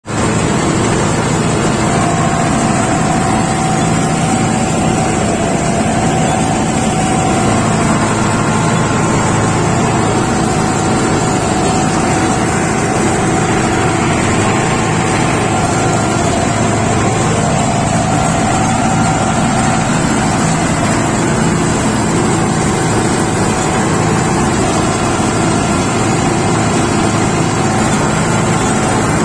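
Mahindra Novo 755DI 4WD tractor's diesel engine running steadily under load while driving a tractor-mounted Balkar 525 combine harvester through a standing crop, the machinery adding a steady whine over the engine rumble.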